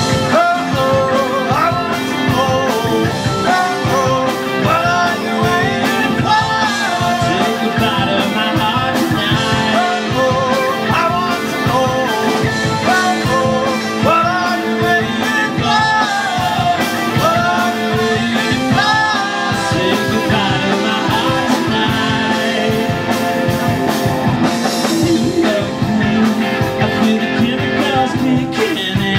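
Live rock band playing loud and steady: electric guitars, bass and drum kit on a steady beat, with a melody line that bends up and down in pitch over the top.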